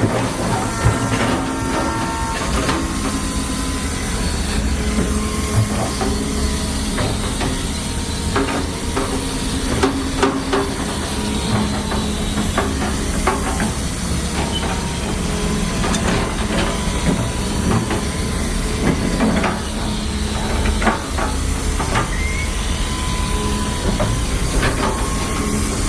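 Digger machinery running steadily, with a continuous hiss and scattered knocks and clanks.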